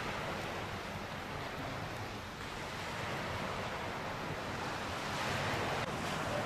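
Steady wash of small sea waves, with some wind on the microphone.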